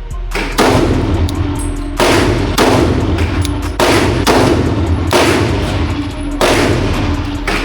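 About six shots from a 9mm Glock pistol, fired at a slow, uneven pace, each with a loud crack and about a second of echo, over background music.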